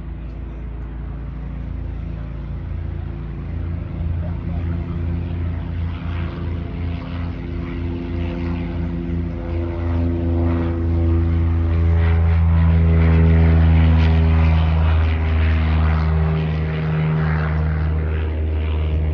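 Propeller airplane's engine running, growing louder to a peak about two-thirds of the way through, then easing slightly.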